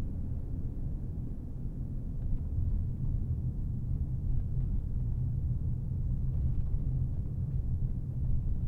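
A car driving along: a steady low rumble of engine and tyre noise.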